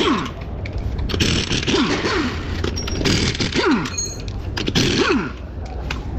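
Repeated scraping strokes of tool work on metal, roughly one a second, each carrying a short falling squeak, over a low steady hum.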